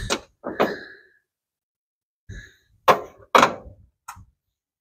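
Hand tools knocking and clinking against the car's sheet-metal cowl as they are handled and set down: about half a dozen separate sharp knocks, a few with a brief metallic ring, the loudest around three seconds in.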